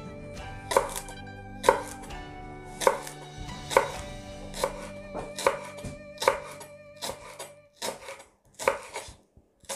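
Knife slicing spring onions on a wooden cutting board: sharp knocks of the blade on the board about once a second, coming closer together near the end. Soft background music runs underneath and stops after about eight seconds.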